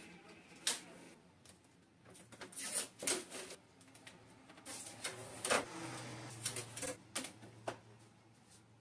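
Blue shipping tape being peeled off a new printer's plastic casing and pressed onto a tabletop: irregular sharp clicks and short rasping tears.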